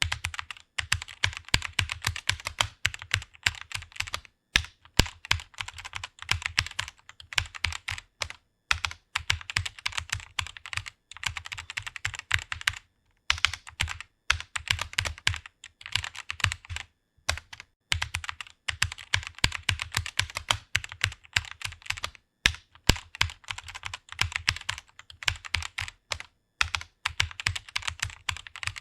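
Fast typing on a computer keyboard: a rapid run of key clicks, broken by short pauses every few seconds.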